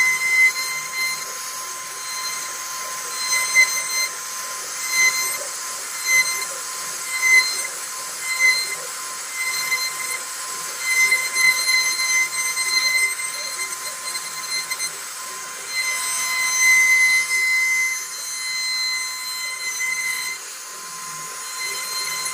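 High-pitched steady whine of a CNC router spindle cutting wood. It swells and dips in loudness every second or so as the bit works.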